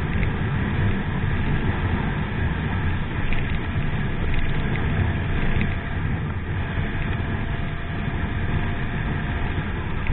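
Steady road and engine noise of a moving car, as picked up by a dashcam inside the cabin.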